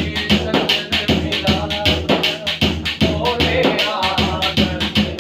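Daf frame drum playing a quick, steady beat of several strokes a second, with a pitched melody running over it between sung lines.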